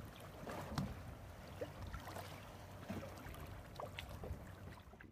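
Water splashing and slapping in short bursts against the side of a boat as a fish is held in the water by hand, over a steady low rumble.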